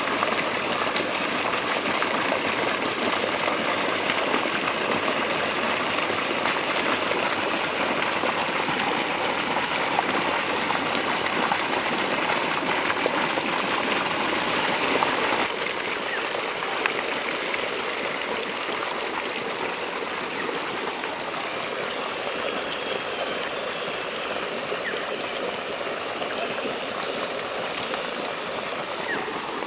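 Steady rush of water splashing and churning into a fish pond, with the surface stirred by a crowd of baby catfish. It drops a little in level about halfway through, and a few faint high chirps come in after that.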